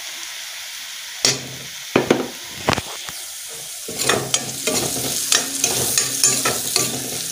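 Oil sizzling in a steel kadai while a steel ladle stirs the frying pieces, the metal scraping against the pan. There are a few separate scrapes at first, then steady stirring from about halfway through.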